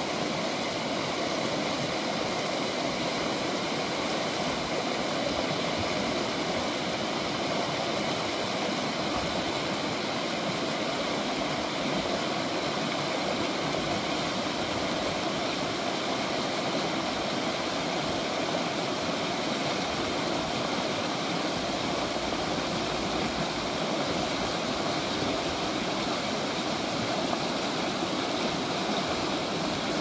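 River rapids: a strong current pouring over a low ledge and churning into whitewater, a steady rushing of water.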